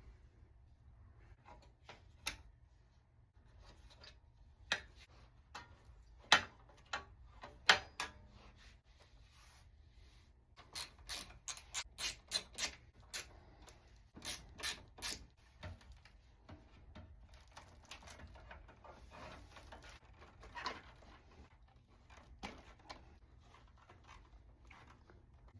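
Hands working on desktop PC hardware: scattered sharp clicks and knocks of parts and tools, with a run of quick ratchet-like clicks, about four or five a second, starting around ten seconds in and lasting about five seconds.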